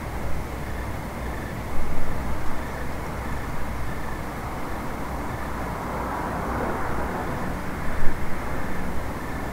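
Low rumble of distant vehicles, swelling about six to seven seconds in. Crickets chirp faintly and regularly over it, and there are brief louder bumps near two seconds and near eight seconds.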